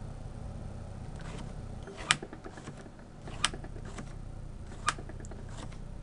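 Three sharp clicks about a second and a half apart, with a few fainter ticks, as fingers handle a small hatch cover on a model aircraft's fuselage, over a low steady hum.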